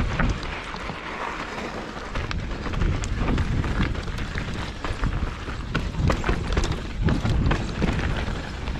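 Mountain bike descending a rough dirt trail, with its tyres and frame rattling and knocking over rocks and roots under a steady rumble of wind on the microphone.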